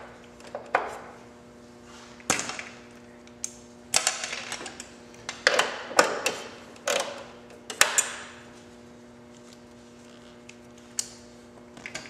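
Irregular clicks, taps and short scraping rattles of a 4mm Allen wrench working a small bolt out of a Victory Vision motorcycle's dash switch panel, metal tool against bolt and plastic panel.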